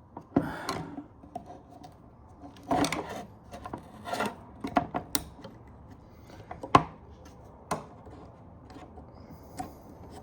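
Trunk latch assembly being worked by hand, a stuck metal piece pushed and pried: scraping and rubbing with scattered clicks, and one sharp click about seven seconds in.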